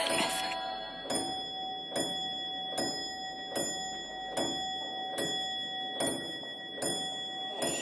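Slow, even clock ticking, a little faster than one tick a second, over a steady high ringing tone; the ticks begin about a second in.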